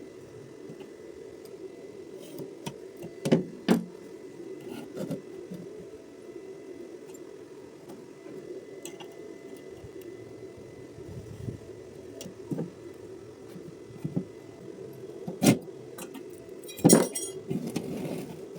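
A few sharp metallic clinks and knocks, metal pieces being handled, over a steady low hum.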